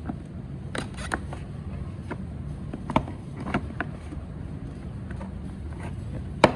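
Scattered plastic taps and clicks as a rear reflector is slid into a car's plastic bumper cover, with one sharper click near the end.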